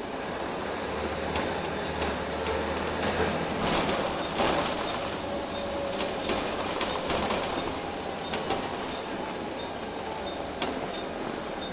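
Wright Eclipse single-deck bus heard from inside the passenger saloon while under way: a steady rumble of engine and road noise with frequent short rattles and knocks from the body and fittings, a deeper engine hum from about one to three seconds in, and a louder swell of noise about four seconds in.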